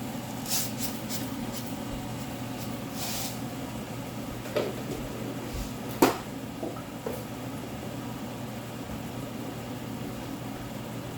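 Steady low kitchen hum with a few light scrapes and clicks of a cooking utensil against a pan, and one sharp knock about six seconds in.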